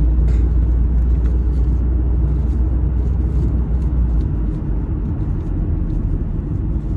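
Low, steady rumble of a moving car heard from inside the cabin, from road and engine noise. The deep drone shifts about four seconds in.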